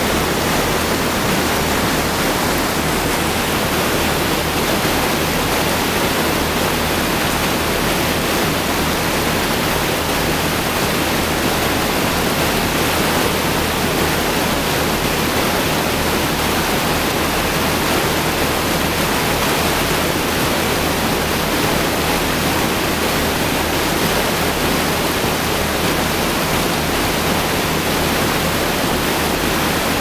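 Steady rush of flowing water, unbroken and even.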